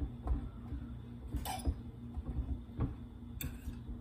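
A fork clinking and scraping against a bowl while sliced squash and eggplant are stirred in milk: four or so sharp clinks, spread through, over a low steady hum.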